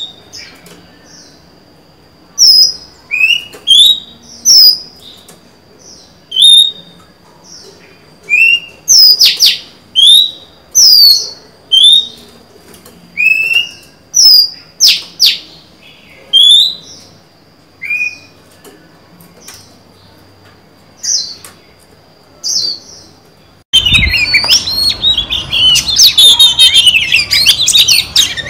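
Oriental magpie-robin, a female, giving short clear whistled notes about once a second, each a quick rising or falling slur. Near the end it switches abruptly to a dense, continuous run of rapid warbling song.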